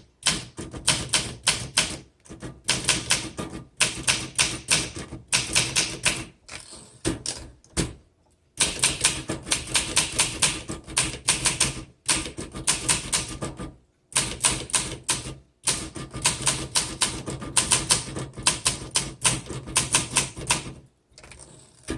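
1963 Olympia SM7 manual typewriter being typed on: rapid key strikes clacking in quick runs, broken every couple of seconds by brief pauses.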